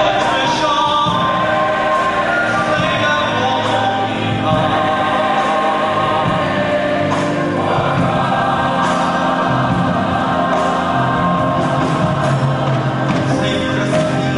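Choir singing gospel music.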